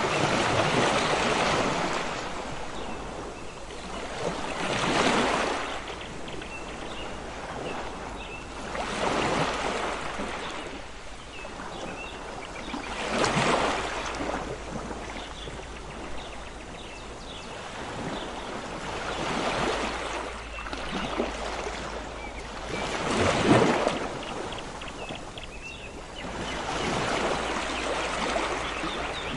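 Sea waves breaking and washing up a beach, the surf swelling and fading about every four to five seconds.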